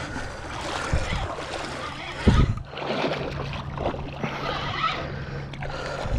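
Water splashing and sloshing over a low steady hum, with two dull knocks, the louder one a little over two seconds in.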